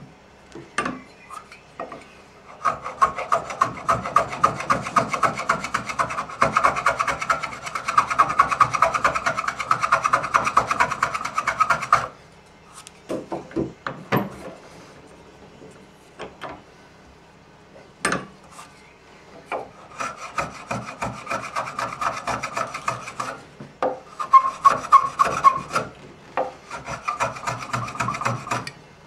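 A piece of spalted taraire wood being abraded by hand in quick, even back-and-forth strokes. There is a long bout of strokes, a pause with a few knocks of the wood being handled, then several shorter bouts.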